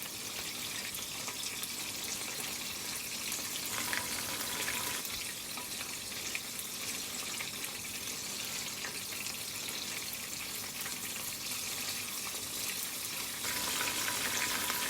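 Chicken pieces frying in hot oil in a pan: a steady sizzle with fine crackling, a little louder near the end.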